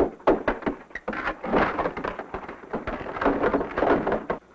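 Sharp irregular raps and knocks on a wooden wall, giving way to a dense scraping rattle that cuts off suddenly near the end, as the hollow wall is searched for a hidden opening.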